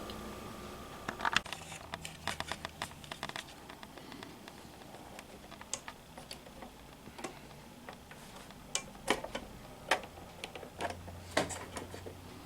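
Scattered light clicks and taps of a screwdriver and small screws as the instrument cluster housing is unscrewed from a car dashboard, a quick run of clicks in the first few seconds, then single sharper ticks every second or so.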